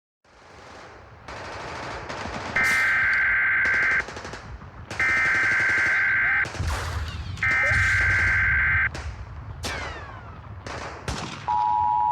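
Emergency Alert System SAME header data bursts, three loud buzzy bursts of about a second and a half each, over gunfire sound effects. Near the end the EAS two-tone attention signal begins, a steady dual tone.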